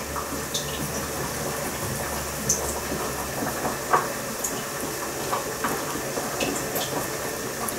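Steady kitchen hiss, with a few faint soft clicks as raw minced meat is rolled between the palms into meatballs. A low hum cuts off about three seconds in.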